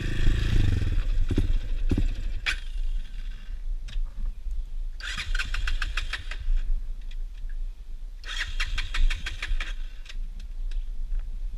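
Honda XR 200's single-cylinder engine running, its note falling away about two seconds in, with a few sharp clicks. Later come two short, rapidly pulsing high buzzes, each about a second and a half long.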